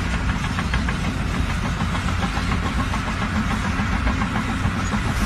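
An engine running steadily with a fast, even clatter over its low hum.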